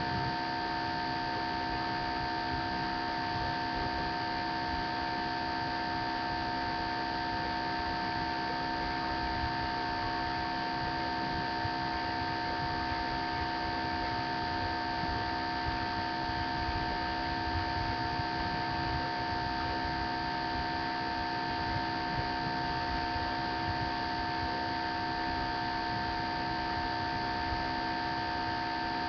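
Steady electrical hum and hiss, the kind a webcam's microphone picks up: several unchanging tones over a constant noise floor.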